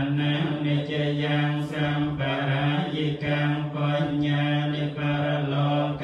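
Group of Theravada Buddhist monks chanting Pali together in unison, a steady recitation held on one low pitch.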